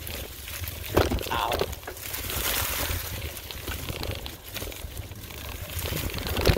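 Mountain bike riding along a dirt trail: tyres crunching over the ground and the bike rattling, with a sharp knock about a second in.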